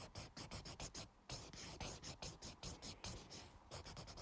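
Dual-tip colour marker shading with quick, short, repeated strokes, several a second, with a brief pause about a second in.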